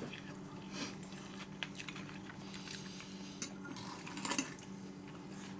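Forks and spoons clinking lightly against plates as people eat, a few scattered clicks with a louder clatter about four seconds in, over a faint steady hum.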